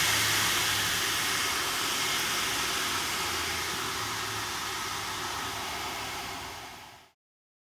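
Emmegi 350P mitre saw running with a steady hissing noise that slowly gets quieter, then fades out about seven seconds in.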